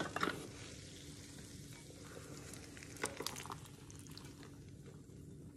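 Browned bratwurst slices tipped out of a hot stainless-steel Thermomix mixing bowl into a ceramic bowl: a knock as the mixing bowl is lifted out just after the start, then a short clatter of slices sliding out about three seconds in, over a faint steady sizzle of hot fat left from browning.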